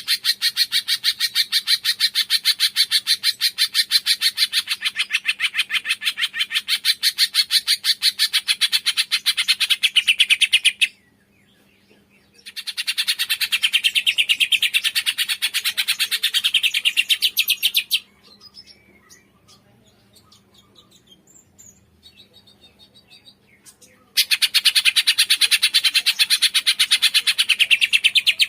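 A cungkok songbird giving a rapid, unbroken chatter of sharp, evenly repeated notes, in three long runs broken by two pauses of a few seconds, with faint distant calls during the pauses.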